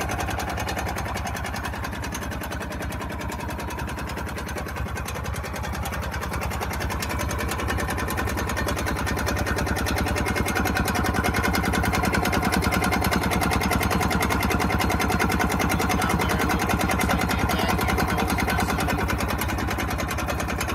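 Snowmobile engine fitted in a golf cart idling warm with a steady, fast firing rhythm, a vacuum line left disconnected. It gets somewhat louder about halfway through.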